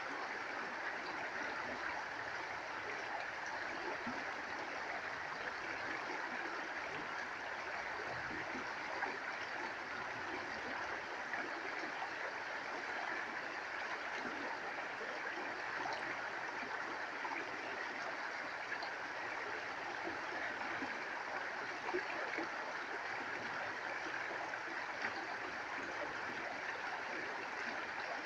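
Shallow forest stream running over stones and a small drop, a steady, even rush of water.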